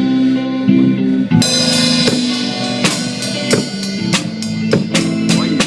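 Band music with a drum kit and guitar playing held chords; the drum strokes come thicker and sharper about four seconds in.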